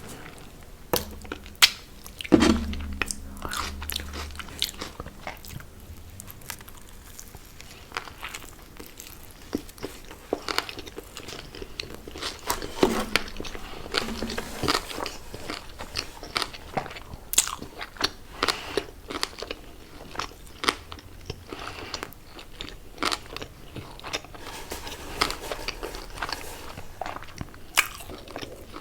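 A person biting and chewing fast food, with crunchy bites and wet mouth clicks at an irregular pace. The loudest crunch is a bite about two seconds in.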